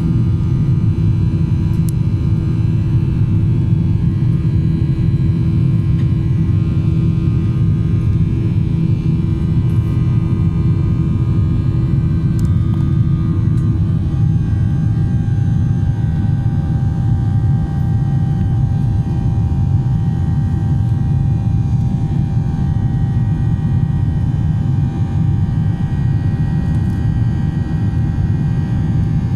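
Air India Express jet airliner's engines running at high power during takeoff, a loud, steady rumble with a hum of engine tones. About halfway through, one low tone drops away and a higher whine comes in.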